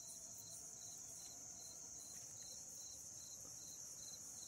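Crickets chirping faintly: a steady high-pitched trill, with a second, lower chirp repeating a couple of times a second.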